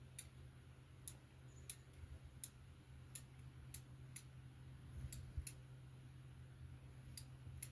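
Sharp, irregular clicks, about a dozen of them, over a faint low steady hum.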